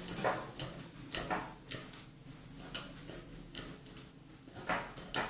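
Irregular light clicks and taps, roughly one or two a second, from handling things in the kitchen.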